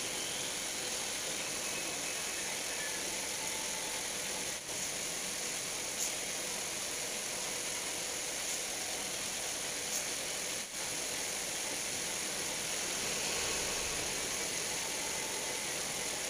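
Steady hiss of background noise, with a couple of faint ticks and two brief dips.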